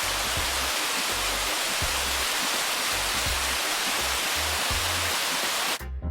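Steady rushing of a river cascade over rocks, a loud even hiss, with background music whose deep bass beat pulses underneath. The water sound cuts off abruptly near the end, leaving the music.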